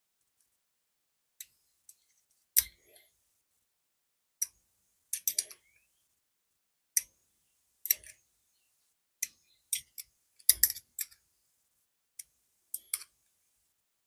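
Irregular sharp clicks and light knocks of hand tools and small metal parts being handled, a dozen or so, with two heavier knocks about two and a half and ten and a half seconds in.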